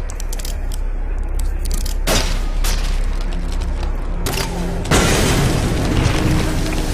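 Show sound effects played loud over a PA system: a steady low rumble with sharp cracking sounds about two seconds in, then a sudden loud crash just before five seconds, carrying on as crumbling noise, timed to the projected wall breaking open.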